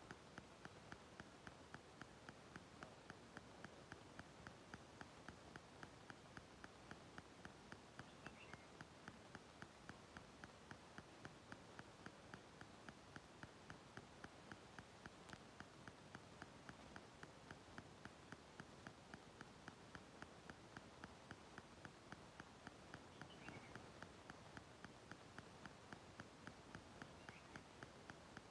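Near silence: faint background hiss with a steady soft ticking about three times a second, and a few brief faint chirps about a third of the way in and near the end.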